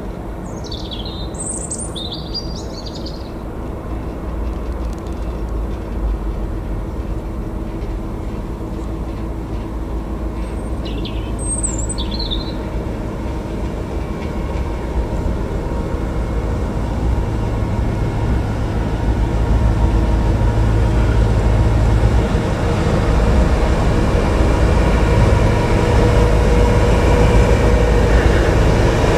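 Colas Rail track tamping machine DR 73936 running slowly on the line, its diesel engine hum growing steadily louder as it approaches and draws alongside. A small bird chirps twice, near the start and about eleven seconds in.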